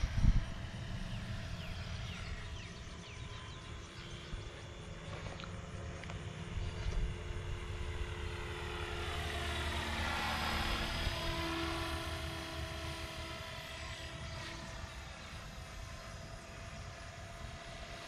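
E-flite F-16 70 mm electric ducted-fan jet flying past, its fan whine swelling to its loudest about ten seconds in and then fading as it moves away. A brief low thump sounds right at the start.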